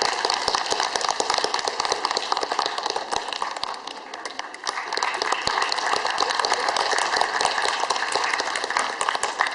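Audience applauding: a dense, sustained crowd of hand claps that dips slightly about four seconds in and then swells again.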